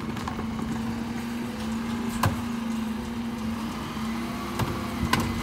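Dennis Elite 6 bin lorry's engine running steadily with a constant hum. A few short knocks of plastic wheelie bins being wheeled up to and pushed against its rear bin lifts come about two seconds in and twice near the end.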